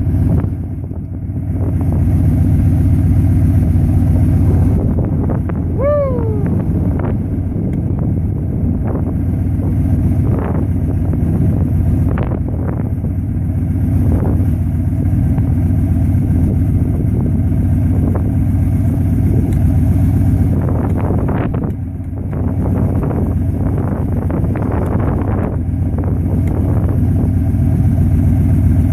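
Steady low engine and road rumble of a Dodge van, with wind buffeting the microphone and scattered light knocks. About six seconds in, a short squeak glides downward in pitch.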